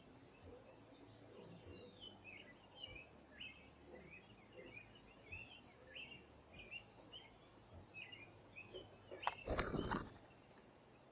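Small birds chirping in a rapid run of short, high calls. About nine seconds in comes a brief, louder burst of noise.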